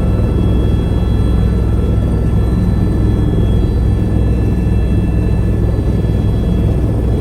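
Helicopter in flight: a steady, loud low rumble of rotor and engine, with a faint steady high whine over it.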